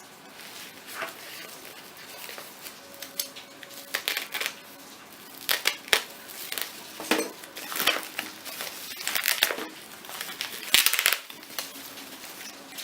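Phone packaging being handled and opened by hand: crinkling and rustling with irregular clicks and taps, busiest in the second half and loudest near the end.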